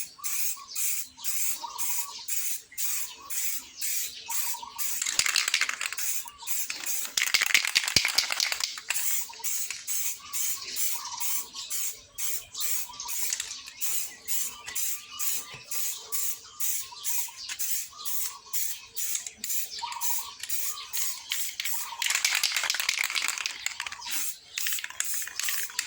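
Aerosol spray-paint can hissing in short bursts, about two a second, with three longer sprays: a black coat going onto an engine side cover.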